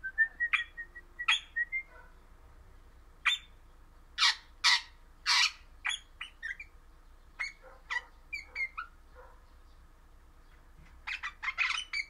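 Crimson rosella (Pennant's parakeet) calling: short whistled chirps and harsh squawks in a broken string, loudest with a few screechy calls around four to five seconds in and a quick run of notes near the end.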